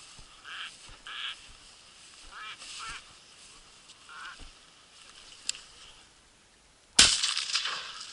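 Ducks quacking a few times. About seven seconds in comes a single loud shotgun shot that dies away over about a second.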